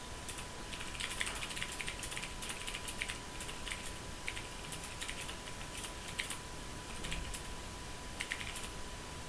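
Fast typing on a Ducky Mecha mechanical keyboard: quick, irregular runs of key clicks with brief pauses between bursts.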